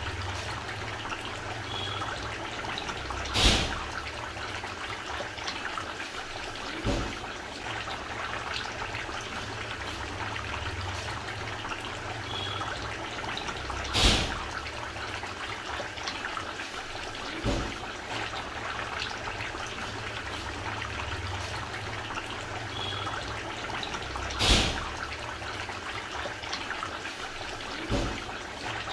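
Steady trickling, running water, with a sharp knock about every ten seconds and a softer one between them, repeating evenly.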